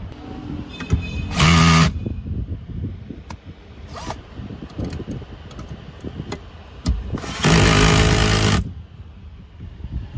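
Cordless drill/driver driving screws into a metal storage bracket: two bursts of motor whine, a short one about a second and a half in and a longer one of about a second near the eight-second mark, with small handling clicks and knocks in between.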